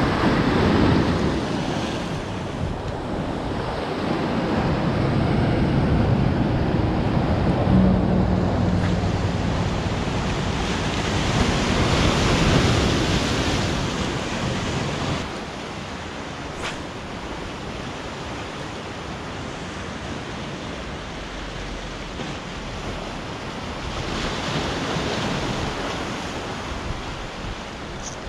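Ocean surf breaking and washing on the shore, rising and falling in surges a few seconds apart.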